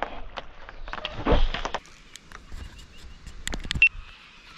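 Scattered clicks and knocks of fishing gear being handled in a boat, with one louder rush of noise about a second in.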